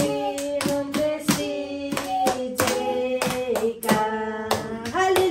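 People singing together, holding long notes, while clapping their hands along in a steady beat of about two claps a second.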